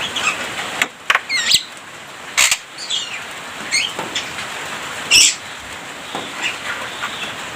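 Javan myna (jalak kebo) singing: a run of short chirps, harsh notes and quick rising and falling whistles, with a few sharp clicks in between.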